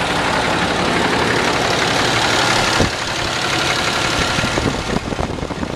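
6.7L Cummins turbodiesel idling with a steady diesel clatter, "just chattering away", while it turns a new serpentine belt and a high-output alternator under electrical load, with no belt slapping heard.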